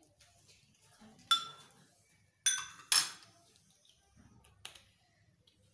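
Metal spoon clinking against a glass blender jar: four sharp clinks, the first with a short ringing tone.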